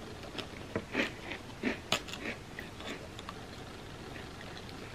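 Close-miked chewing of a graham cracker: a string of small crunches and wet clicks over the first two or three seconds, then fainter.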